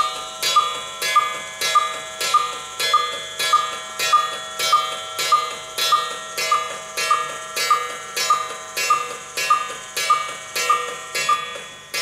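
A cuckoo clock cuckooing on and on in a rapid, even run, a little under two strokes a second. A fault keeps the cuckoo mechanism from stopping, so it runs until the drive weight reaches the floor.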